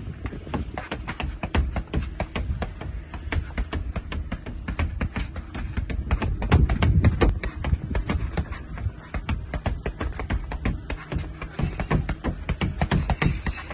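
Gloved fists punching a small free-weight punching ball (OODA Ball) in a fast steady rhythm: a continuous string of slaps and knocks, about three a second.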